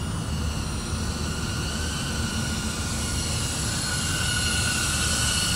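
FPV drone's motors and propellers whining steadily in flight, with wind rumble on the onboard microphone; the whine grows slightly louder and higher toward the end.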